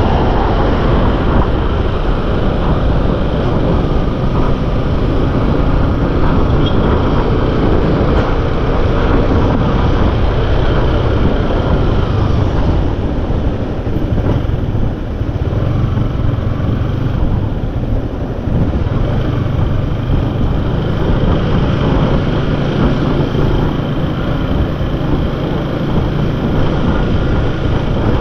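Motorcycle on the move: a loud, steady rush of wind and road noise with the engine underneath.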